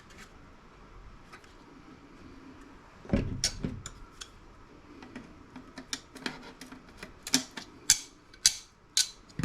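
Pliers working components off a circuit board: a low thump about three seconds in, then a run of sharp, irregular metallic clicks and snaps.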